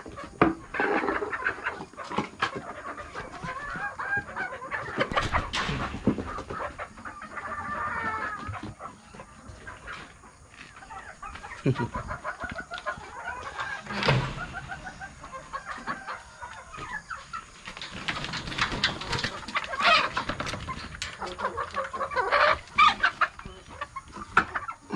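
Chickens clucking in a coop, with a rooster crowing once partway through, over scattered knocks.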